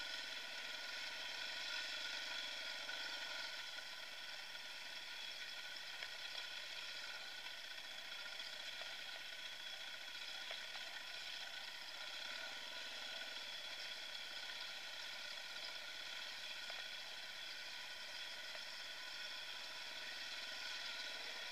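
Dirt bike engine running at a steady pitch while riding singletrack, the revs holding even with no sharp rise or fall.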